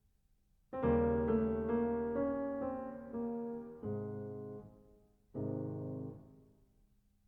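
Slow, soft solo piano music: a short melodic phrase starts about a second in, followed by two single chords that each ring and fade away.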